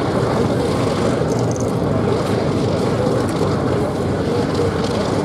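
Piston engines of vintage WWII fighter aircraft running on the ground: a steady, rough, continuous engine drone.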